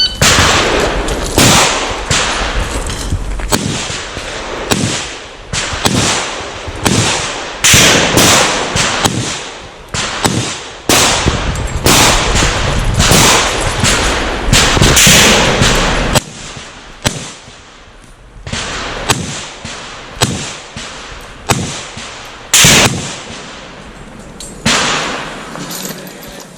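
Handgun shots fired in quick, irregular strings, each with a short echo. After about 16 s the shots come more sparsely and most are fainter, with one loud shot near 23 s.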